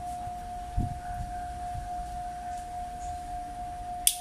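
SEC-E9 computerized key cutting machine's motors whining at one steady pitch as the head moves to measure a key blank. There is a low thud about a second in and a sharp click near the end.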